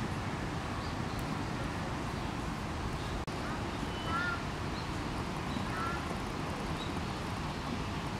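Steady low background noise of an outdoor animal enclosure, with a few faint, short, high bird chirps about 1, 4 and 6 seconds in.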